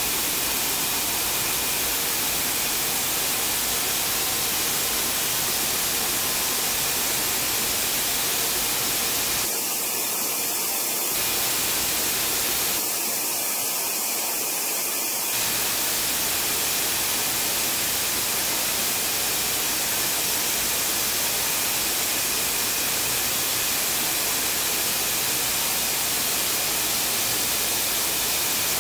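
Steady, loud hiss of a running Tessilmeccanica Saronno BCF yarn production line, with a few faint steady tones under it.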